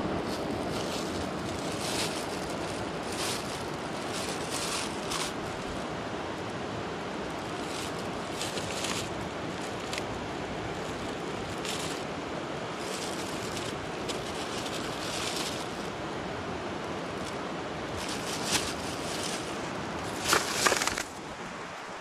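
Plastic bags crinkling and rustling in short bursts as litter is handled and stuffed into them, over a steady rushing background. The loudest crinkles come near the end.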